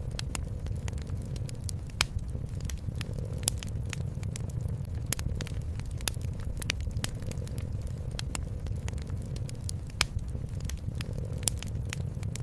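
Wood fire crackling in a fireplace, with irregular sharp pops, the loudest about two seconds in and near ten seconds. Under it runs a steady low rumble of a cat purring.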